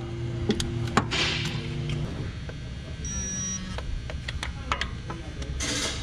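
Hand ratchet clicking in short irregular runs while running in the small 10 mm mounting bolts of a new hydraulic timing belt tensioner.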